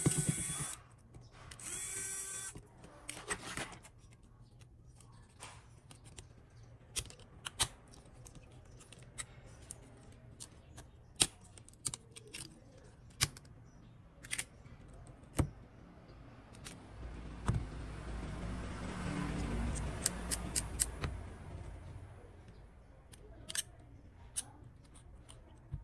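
A small electric screwdriver whirs twice in short bursts, backing out the screws of a Samsung Galaxy A8+. Then come scattered sharp clicks and taps as the plastic midframe and cover parts are pried up and set down, and a longer stretch of handling and rubbing on the rubber mat.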